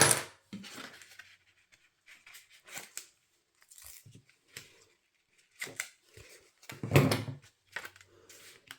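Paper-craft handling: cardstock and double-sided foam tape being handled, with scattered rustles and small clicks and a louder knock about seven seconds in.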